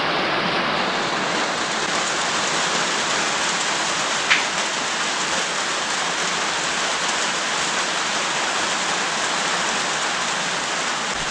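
Rain falling steadily, heard as an even hiss, with a single sharp click about four seconds in.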